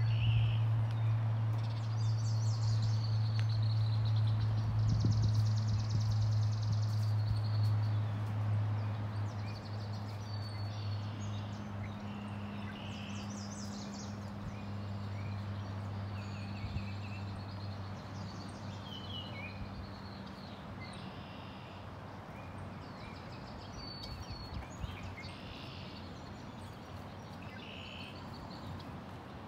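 Small birds singing and calling on and off, short calls and trills, over a steady low hum that fades away during the first third, with a fainter hum in the middle.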